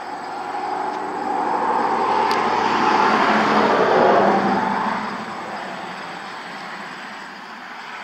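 A vehicle passing by, its noise swelling to a peak a few seconds in and then fading away.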